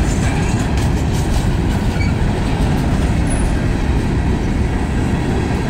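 Freight train cars rolling past, a steady rumble of steel wheels on the rails.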